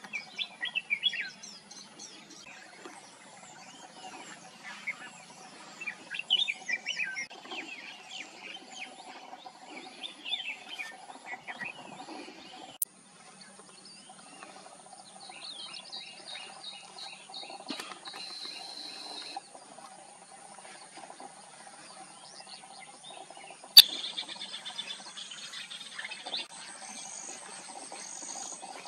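Red-whiskered bulbuls singing short, quick whistled phrases, most of them in the first half, over a steady chirring of insects. Two sharp clicks, one about halfway and one near the end.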